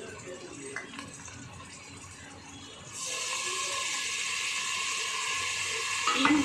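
A little water hits hot oil, onions and ground spices in a pressure cooker, and a loud, steady sizzle starts suddenly about three seconds in and carries on. This is the masala being fried (bhuna) with a splash of water.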